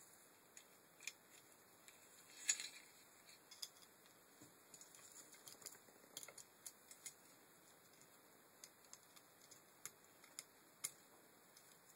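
Faint, scattered clicks and ticks of a Land Rover Freelander MK1 tailgate window regulator's plastic and metal parts being handled and fitted by hand, with one louder click about two and a half seconds in.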